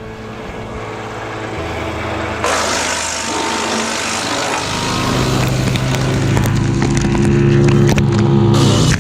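Tractor-driven Split-Fire 4003 two-blade PTO wood chipper running and chipping brush. About two and a half seconds in, a harsh rush of chipping noise cuts in over the machine's steady hum, and it grows louder toward the end with many short crackles.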